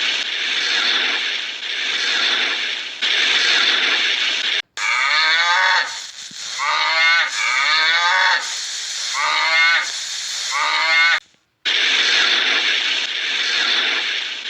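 A run of short, repeated animal calls, each rising and falling in pitch, comes between stretches of rhythmic, noisy hissing that swells about once a second; each part starts and stops abruptly.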